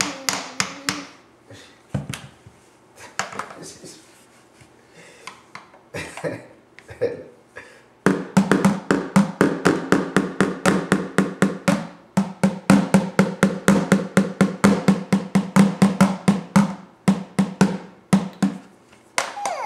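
Toy drum beaten with plastic mallets: a few scattered, uneven strikes at first, then from about eight seconds in a fast, steady run of beats with a ringing drum tone that breaks off briefly once and stops near the end.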